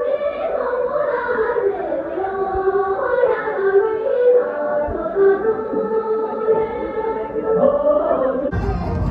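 Tibetan folk song with group singing, accompanying a line dance. About eight and a half seconds in, it cuts abruptly to a different song with a heavier bass.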